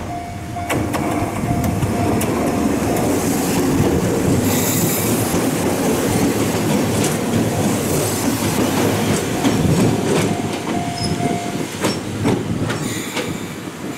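An Ohmi Railway electric train pulling into the station alongside, its wheels clattering over rail joints as it passes close by. A short squeal sounds a little after the middle as it slows.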